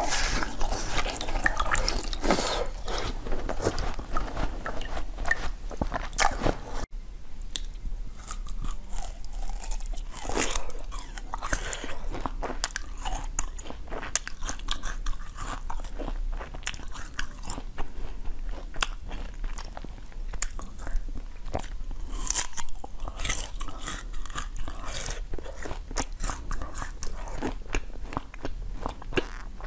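Crunching and chewing of frozen basil-seed ice, bitten off in many crisp cracks, with a short break about seven seconds in.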